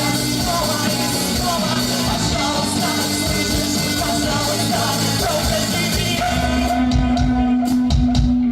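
Rock band playing live with a singer. About six seconds in, the sound thins to a held low note under separate sharp hits.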